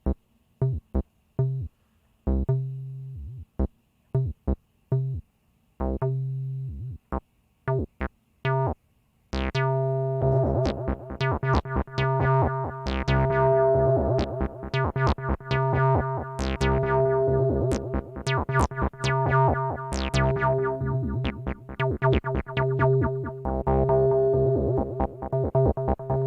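Synthesizer music from a hardware setup of a Behringer TD-3 bass synth, RD-9 drum machine and VD400 analog delay. Short, spaced synth notes give way, about nine seconds in, to a fast continuous sequence of notes with echoing repeats.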